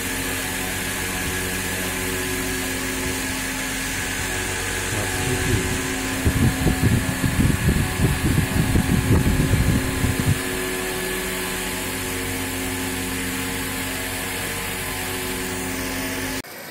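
Electric motor of a bench lens cutting and grinding machine running steadily, a hum made of many steady tones. From about five to ten seconds in, irregular low rumbling comes over it, and the sound cuts off abruptly near the end.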